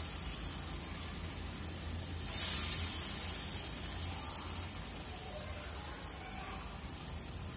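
Chickpea vadas deep-frying in hot oil in a steel pot: a steady sizzling hiss, a little louder from about two seconds in and then slowly easing.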